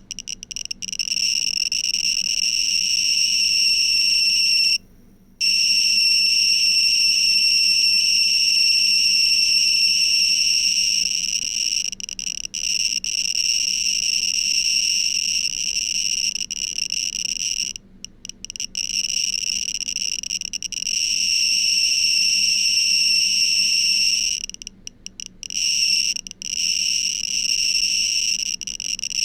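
Geiger counter clicking so fast that the clicks merge into a dense, high-pitched crackle, the sign of a high radiation count. It drops out briefly about five seconds in, again around eighteen seconds, and several times near the end.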